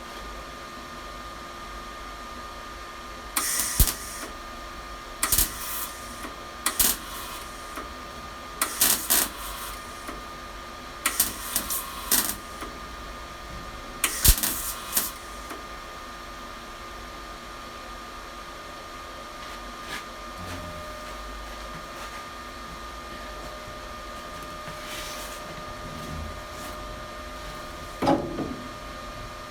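Welder laying six short tack or stitch welds on the steel body panels of a classic Mini, one burst of under a second every second or two through the first half, over a steady faint whine. A knock near the end.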